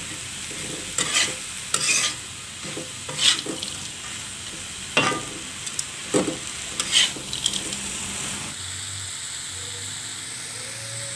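A spatula stirring and scraping sticky, glazed crumbled tempeh around a hot wok over a steady sizzle. There are about six short scrapes in the first seven seconds, then only the sizzle.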